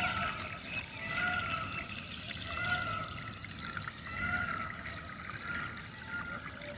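Flowing water trickling steadily while a bird repeats a short call about every second and a half.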